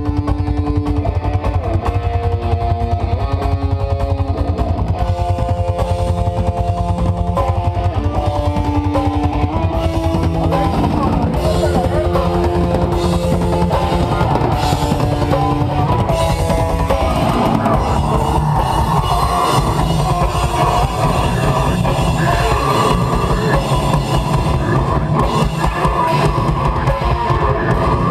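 Live metal band playing loud: an electric guitar riff of held notes that step up and down over fast, steady bass drum hits, shifting about two-thirds of the way through into a denser, heavier section.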